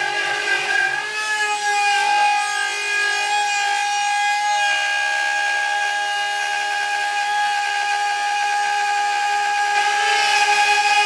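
CNC router spindle running with a steady high whine as it machines the stock, getting a little louder near the end.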